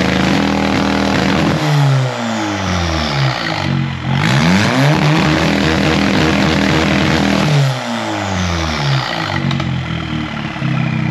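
Audi S3 8V's turbocharged 2.0-litre four-cylinder, exhausting straight out through a cut-out in the bonnet, revved up and held at steady high revs, then let fall, twice. A high whistle falls in pitch as the revs drop each time.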